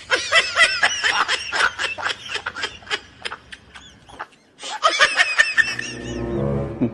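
High-pitched giggling laughter in quick, rapid bursts, pausing briefly about four seconds in, with a lower drawn-out vocal sound near the end.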